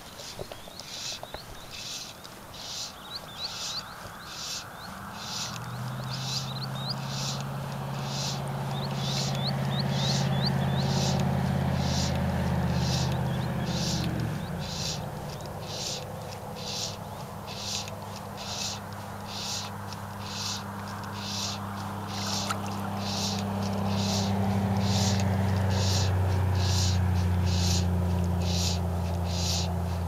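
An evening chorus of insects pulsing steadily about once a second, with a few short rising bird chirps in the first ten seconds. From about five seconds in, the low drone of an engine rises and becomes the loudest sound, shifting pitch about halfway through.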